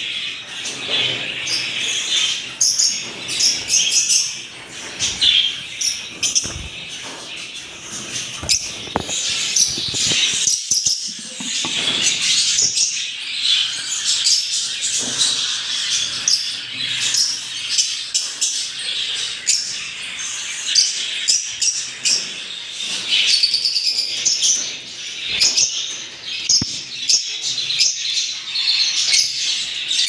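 Many lovebirds in a breeding colony chirping and chattering without a break, a dense mix of shrill, high chirps and squeaks.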